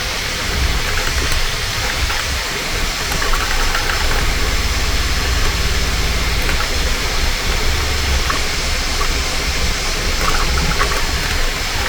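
Bambu Lab A1 Mini 3D printer running: its stepper motors hum in low tones that shift every second or two as the print head and bed move, over a steady fan hiss.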